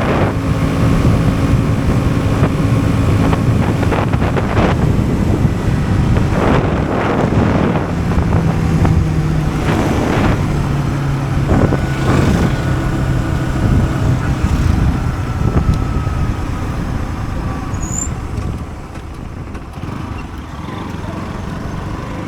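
Bajaj Pulsar NS160's single-cylinder engine running on a ride, its note shifting several times as the speed changes. It grows quieter about eighteen seconds in.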